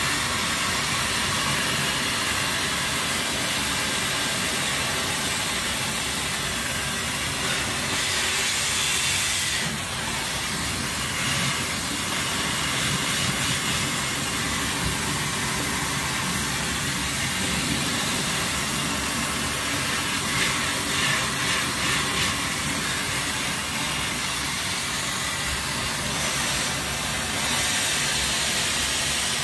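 Hair dryer running steadily on its highest fan speed with a loud airflow hiss, which shifts a little in tone as it is moved through thick, wet hair.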